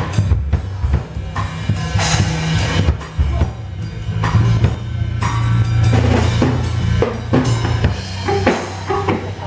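Band music led by a drum kit: repeated bass-drum and snare hits over a loud, low, sustained bass.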